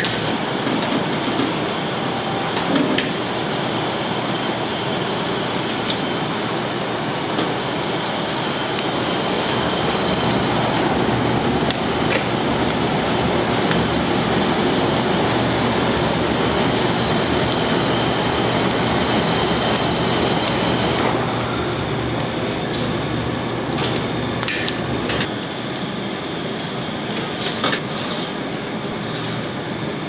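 Steady kitchen machinery noise, a broad whooshing hum like a ventilation fan or the roaring wood-fired oven, with scattered clicks and knocks of utensils. A faint high whine underneath stops about two-thirds of the way through.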